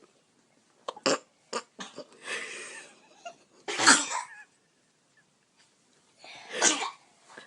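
Small children sneezing: a loud sneeze about four seconds in and another about six and a half seconds in, preceded by several short sharp sounds.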